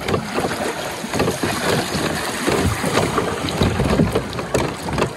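River water rushing and splashing around a wooden river raft, with wind buffeting the microphone.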